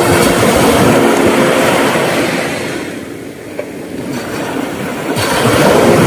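Small sea waves breaking and washing up a sandy beach, a steady hiss of surf. It eases off around the middle and swells again with the next wave near the end.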